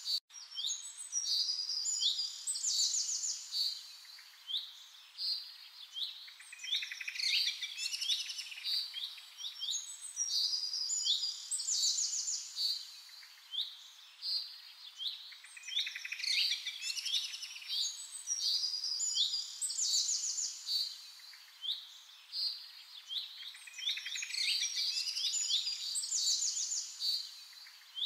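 Songbirds chirping and trilling together in a dense chorus, high short calls and rapid trills overlapping and swelling in waves every few seconds.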